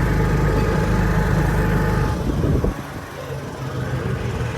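A motor vehicle's engine running steadily with a low hum. The hum drops away about two seconds in, leaving a much quieter background.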